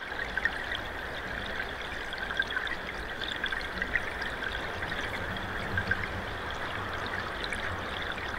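Playback of a sonification of river data during a thaw: a steady recording of a river flowing, with small clicks and tinkles scattered over it. It starts suddenly.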